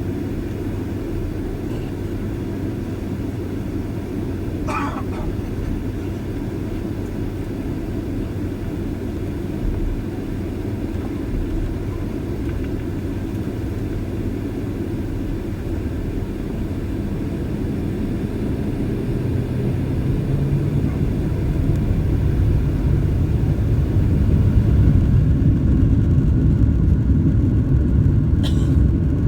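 Steady low rumble of a Boeing 767-323ER airliner's jet engines during taxi, growing louder about two-thirds of the way through. Two brief faint high chirps, one early and one near the end.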